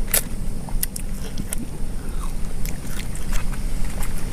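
Two people biting and chewing salted lemon slices: short scattered clicks, over a steady low rumble.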